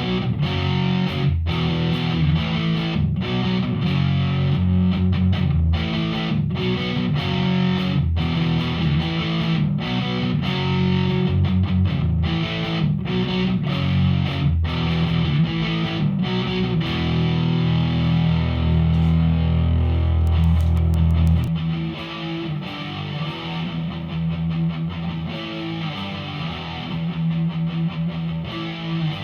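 Electric guitar played through a Behringer V-Amp Pro amp-modelling processor on a distorted preset. Heavy riffing is cut by frequent short stops, then a low chord is held and rings out about two-thirds through. Softer playing follows near the end.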